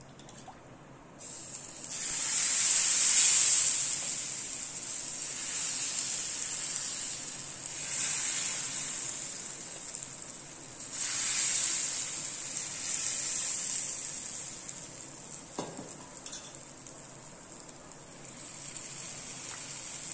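Thin ragi dosa batter sizzling as it is ladled onto a hot griddle, rising in three surges as successive pours hit the pan and settling to a softer, steady sizzle between them.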